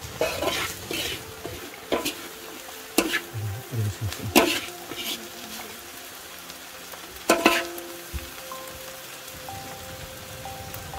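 Chopped greens with corn kernels sizzling as they are stir-fried in a large metal wok. A spatula scrapes and knocks against the wok about five times, the metal ringing briefly after the knocks.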